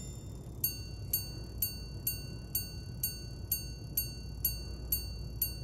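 Jaeger-LeCoultre Reverso à Rideau minute repeater striking the time with its hammers on the gongs. After a short pause about half a second in, it rings a long, evenly spaced run of bright single strikes, about two a second, each note ringing on briefly.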